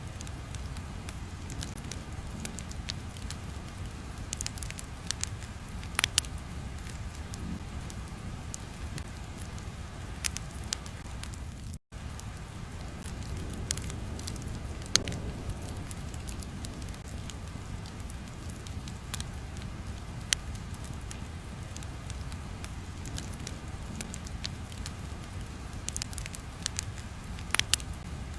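Crackling fire ambience: a steady low rumble with scattered pops and crackles, and a momentary dropout about twelve seconds in.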